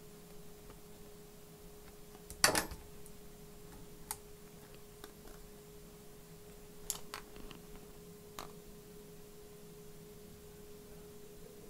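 Scattered clicks and knocks of hands and tools working on an opened laptop. The loudest is a sharp knock about two and a half seconds in, and a few lighter clicks follow near the middle, over a faint steady hum.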